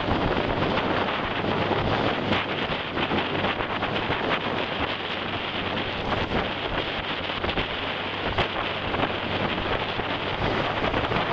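Wind buffeting the microphone over the rush of a motorboat's churning wake, with the boat's engine humming steadily underneath.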